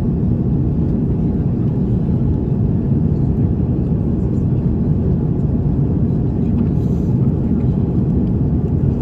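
Steady cabin noise inside an Airbus A330-900neo climbing out after takeoff: its Rolls-Royce Trent 7000 engines and the rushing air heard together as an even, low rumble.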